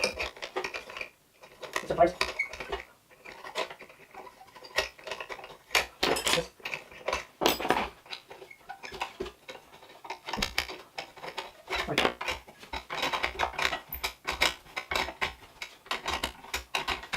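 Irregular metallic clicks and clinks of a hand tool against small metal parts as a cleaned part is refitted on a Stihl handheld leaf blower.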